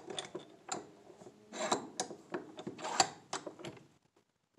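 Irregular metallic clicks and clatter of a 10 mm socket wrench being worked on the clutch nut of a nitro RC engine, tightening the nut that draws the flywheel down onto its collet.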